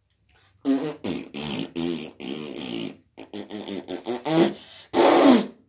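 Mouth-made fart noises: a person blowing buzzy raspberries in a run of drawn-out blasts, with a short pause about three seconds in. The last one, near the end, is the loudest and falls in pitch.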